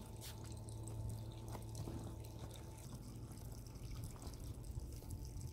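Faint, steady low hum of a 12 V electric inflation pump running, with a few light clicks and handling knocks from the hose and boat fabric.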